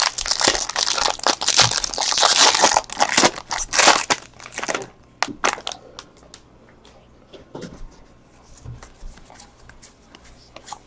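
Foil trading-card pack wrapper crinkling loudly as it is torn open by hand, dying down about five seconds in. After that come quieter ticks and slides of the cards being thumbed through.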